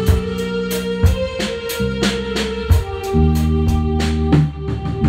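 Band playing an instrumental passage of a pop ballad without singing: a drum kit keeping an even beat with cymbal strokes, bass guitar, and sustained keyboard chords that change every second or so.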